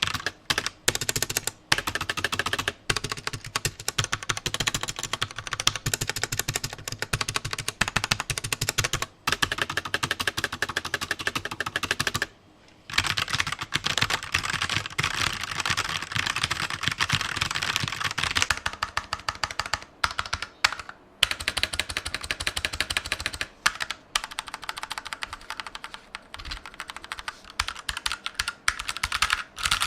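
Typing sound test on 60% mechanical keyboards, the Ant Esports MK1300 Mini with Outemu red linear switches and the MK1200 Mini: rapid, continuous keystrokes. There is a short pause about twelve seconds in, and the sound changes about eighteen seconds in, likely as typing moves from one keyboard to the other.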